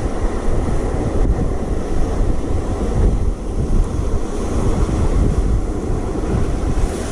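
Wind buffeting the microphone in a steady rush with gusts, mixed with the wash of sea surf.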